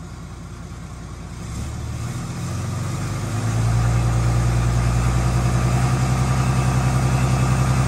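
Cummins diesel engine running, brought up smoothly from a low idle to a higher steady speed about two to three seconds in, then held there.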